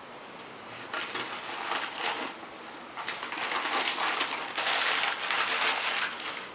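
Crumpled packing paper and plastic rustling and crinkling as a cardboard shipping box is unpacked by hand, getting louder about halfway through.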